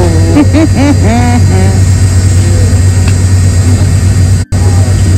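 Steady low drone of a private jet's cabin in flight, with a voice briefly over it in the first second or so. The sound cuts out for an instant about four and a half seconds in.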